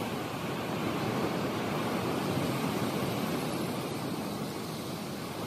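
Ocean surf washing onto a sandy beach: a steady rushing hiss that swells and eases slightly.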